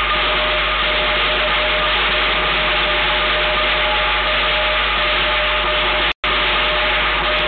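Steady loud hiss with a low hum underneath and a few faint steady tones. There is no drumbeat or other rhythm in it, and it cuts out for a split second about six seconds in.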